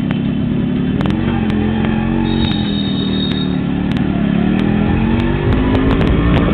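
Small Yamaha DX 100cc motorcycle engine running as it is ridden at low speed, its note rising and falling with the throttle. A brief high steady tone sounds about halfway through, and a few sharp clicks.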